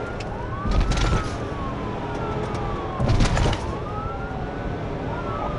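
Police car siren on the wail setting, its pitch slowly rising and falling in long sweeps, heard from the patrol car as it drives at speed. Twice there is a short, louder burst of rushing noise over the siren.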